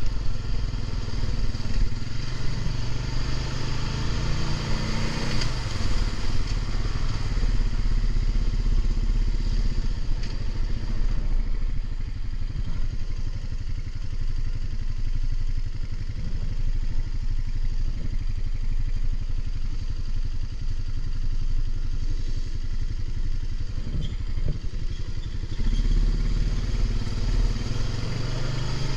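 Honda ATV's single-cylinder four-stroke engine running under way over sand and gravel, its pitch rising and falling with the throttle, easing through the middle and picking up again near the end.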